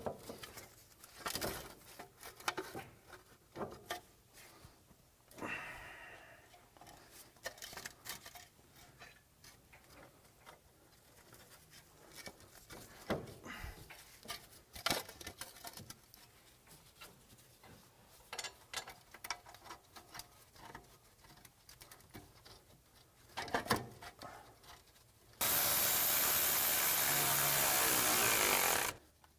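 Scattered clicks and knocks of metal parts being handled and fitted, then a power tool running steadily for about three and a half seconds near the end before stopping sharply, as the new wheel hub assembly's bolts are run in.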